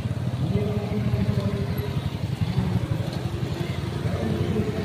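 Small motorcycles riding past one after another at low speed, their engines running with a pitch that rises and falls as each bike goes by.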